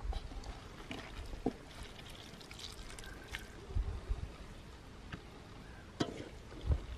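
Faint pouring and trickling of water, with scattered small clicks and a soft low thump about four seconds in.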